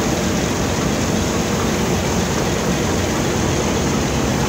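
Pakistan Railways HBU-20 diesel locomotive's engine running steadily at close range, a continuous heavy low rumble.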